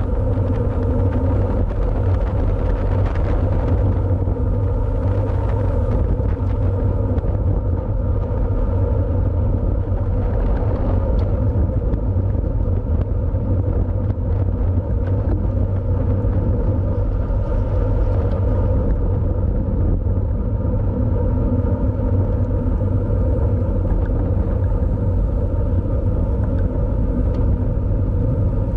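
Steady wind rumble on the microphone of a road bike ridden at racing speed, with a constant hum above it and no change for the whole stretch.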